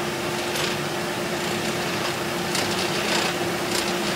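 Coal forge fire running under its air blast: a steady rushing noise with a constant low hum, and a few faint brief scrapes as the steel is heated for a forge weld.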